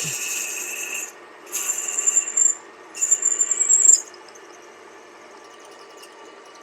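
Drill on a Deckel FP2 milling machine cutting into a cast-iron block. Two short scraping bursts of cutting with a high whine come about a second apart, then the cutting stops and only the machine's faint steady running remains.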